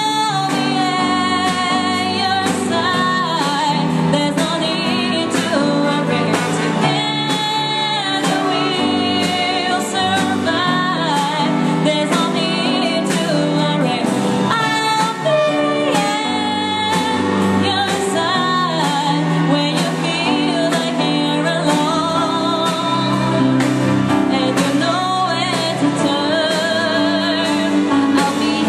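A woman singing a slow song with vibrato, accompanied by a small ensemble of keyboard and violin.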